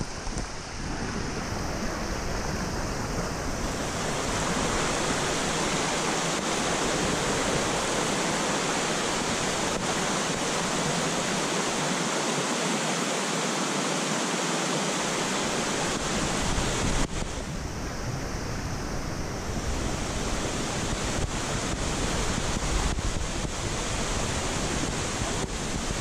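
Steady rush of flowing stream water, with wind rumbling on the microphone that drops away for several seconds in the middle and then returns.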